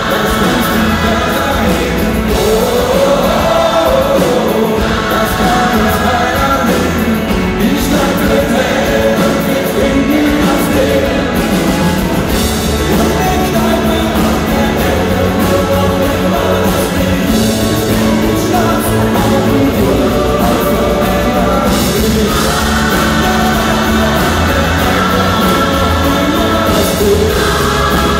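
Live rock band with electric guitars and drums playing while a lead singer and a large gospel choir sing.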